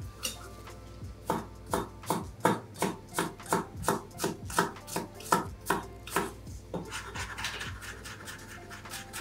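Santoku knife chopping a garlic clove on a wooden cutting board: a steady run of knife strikes, about two or three a second. Near the end the strikes give way to a brief rough scrape of the blade across the board, then lighter, quicker taps.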